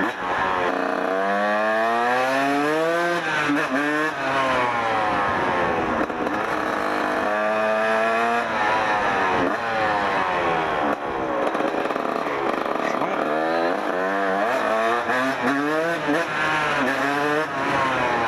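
1994 Kawasaki KX 125's single-cylinder two-stroke engine under way, its pitch climbing and dropping again and again as the rider revs it up and eases off, holding steadier for a stretch around the middle.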